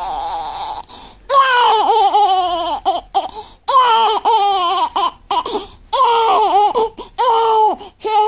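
Newborn baby crying: a long wail that breaks off about a second in, then a string of shorter, wavering wails broken by short gasps for breath.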